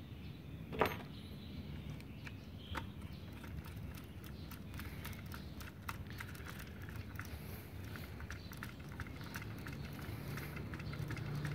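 Faint clicks and light ticks of a screwdriver working on a 3-phase contactor in its enclosure, with a sharper click about a second in. A low steady hum comes in near the end.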